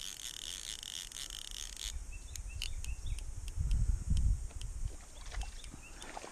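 Handling noise on a kayak on a river. A steady high buzz cuts off about two seconds in. Scattered light clicks and knocks follow, with a low rumble near the middle.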